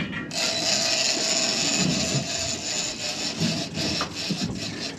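Big-game lever-drag fishing reel's drag screaming as a hooked fish pulls line off: a steady high-pitched whine that starts a moment in and cuts off after about three and a half seconds.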